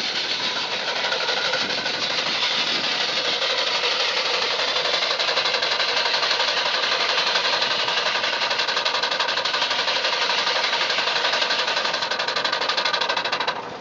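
Scale-model Case steam traction engine running, its exhaust beating fast and steady over a constant hiss of steam.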